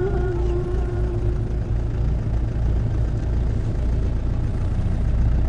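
Low, steady rumble of a vehicle engine running. A sung note fades out over the first second or two.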